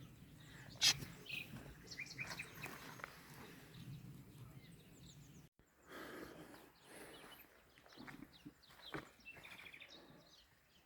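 Faint outdoor ambience with small birds chirping, short high chirps scattered throughout, and a couple of sharp knocks, the first about a second in.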